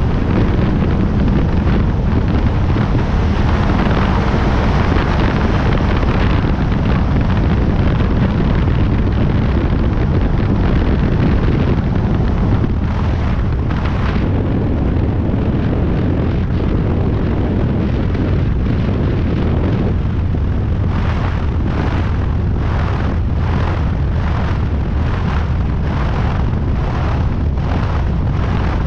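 Single-engine high-wing light aircraft in flight: a loud, steady drone of engine, propeller and rushing air buffeting a wing-mounted microphone. In the last third a regular pulsing comes in, about one and a half beats a second.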